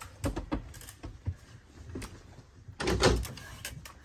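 A wooden door being handled in a small room: a few light knocks and clicks, then a louder bump with a brief scrape about three seconds in.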